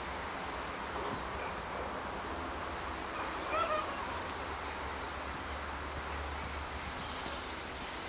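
Wind on the microphone over a low, steady rumble from the distant approaching ALCo RSD16 diesel locomotive hauling a loaded coal train. A short call cuts through briefly about halfway.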